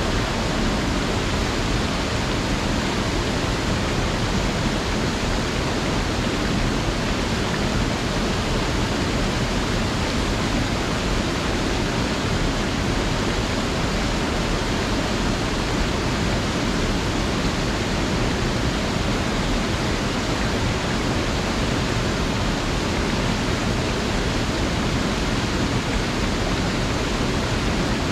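Small mountain creek rushing steadily over rocks: an even, unbroken hiss of water.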